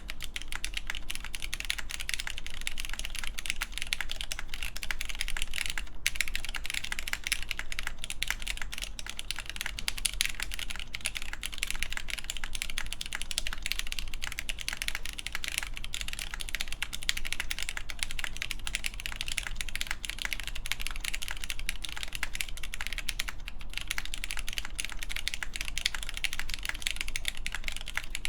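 Steady, fast typing on an AKB Reverie mechanical keyboard with lubed Cherry MX Black Clear Top linear switches, a full polycarbonate plate and GMK doubleshot ABS keycaps: a dense stream of keystroke clacks, broken by two short pauses.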